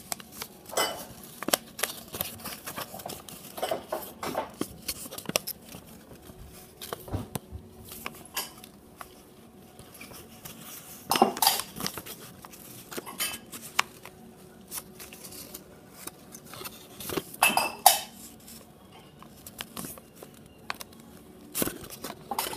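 Origami paper being handled, folded and creased by hand: irregular rustles, crinkles and sharp little clicks, with a few louder ones about halfway through and again a few seconds later.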